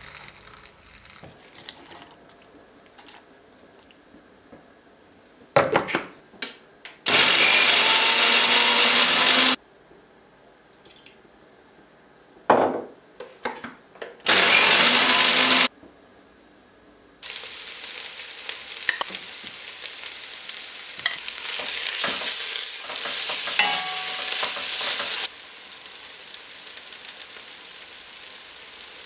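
An electric mixer-grinder with a steel jar runs in two short bursts, about two and a half seconds and then about a second and a half, blending soaked dried chillies into a paste, each burst preceded by knocks of the jar. From about halfway on, sliced onions and spices sizzle while frying in ghee in a pot, stirred with a wooden spatula; the sizzle gets louder for a few seconds, then drops back.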